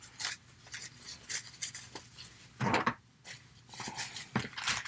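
Rustling and rubbing of a plastic fashion doll and its stiff, sparkly tulle skirt being handled and pulled off, in short scattered bursts; the loudest comes a little under three seconds in, with another near the end.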